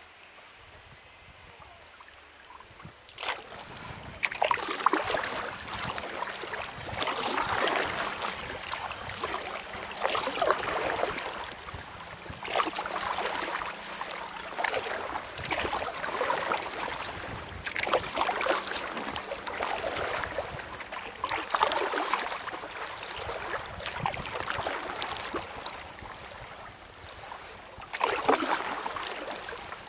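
Paddle strokes of an inflatable kayak, the blades dipping and splashing through the water. The splashes come in a steady rhythm about every three seconds, starting about three seconds in.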